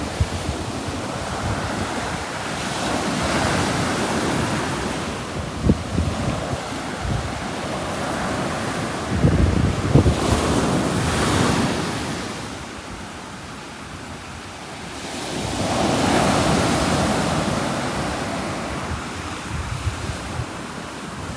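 Sea waves breaking and washing up the shore, swelling and fading in slow surges a few seconds apart. Wind buffets the microphone with low rumbles.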